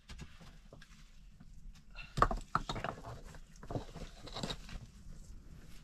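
Digging in loose soil and stones with a shovel and by hand: scattered crunches, scrapes and knocks, loudest in a cluster about two seconds in.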